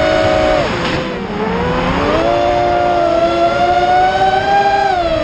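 Brushless motors of a 210-size FPV quadcopter whining in flight, several motor pitches running together and shifting with throttle: they drop sharply about half a second in, climb slowly over the next few seconds, then fall again near the end.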